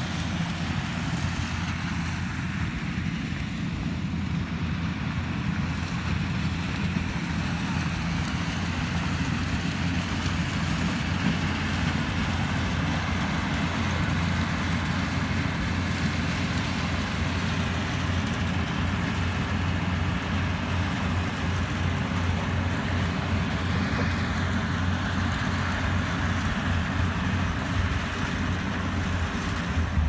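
Corn combine harvester running steadily while it picks standing corn: a constant engine hum with the noise of its machinery over it.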